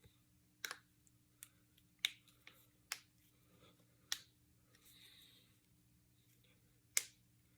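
Finger knuckles being cracked: about eight sharp, irregularly spaced pops, the loudest near the end, with a faint rustle midway.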